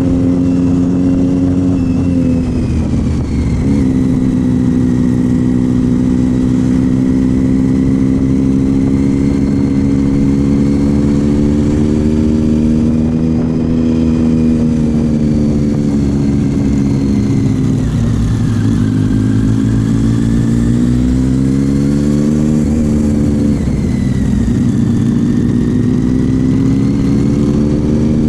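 Triumph Street Triple's inline three-cylinder engine running through a Leo Vince GP aftermarket exhaust under way at a steady cruise. Its note drops and climbs back again about three seconds in, and twice more in the second half.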